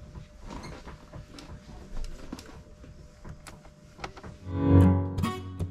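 Quiet workbench room tone with a few light clicks, then music comes in loudly about four and a half seconds in: a deep held note and plucked guitar.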